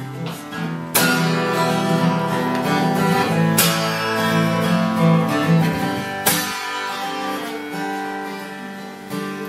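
Acoustic guitar strumming chords in an instrumental passage of the song, with three hard strums about two and a half seconds apart and the chords left ringing between them.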